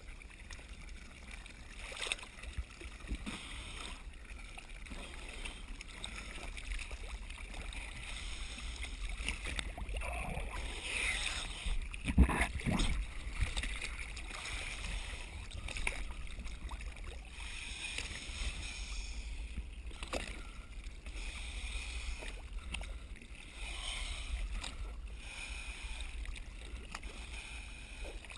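Dive boat at sea: a steady low rumble under an even wash of water and wind noise, with scattered knocks and one louder thump about twelve seconds in.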